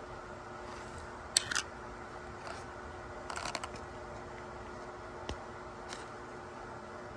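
A few short clicks and brief rustles of small plastic toy packaging being handled, a sharp click about a second and a half in and a cluster of rustles near the middle, over a steady background hum.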